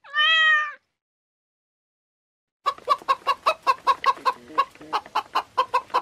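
A calico kitten gives one short meow, under a second long. After a silent gap, hens start clucking in quick succession about halfway through, about four clucks a second.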